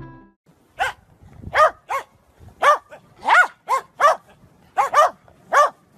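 A dog barking repeatedly: about ten short, high-pitched barks, some in quick pairs, at irregular spacing.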